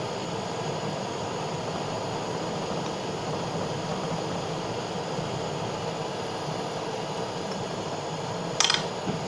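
Butane blowtorch flame burning with a steady hiss. One sharp click comes near the end.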